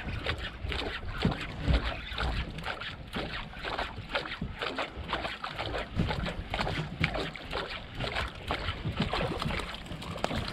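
Choppy water slapping and splashing against the hull of a small boat, with wind buffeting the microphone in uneven gusts.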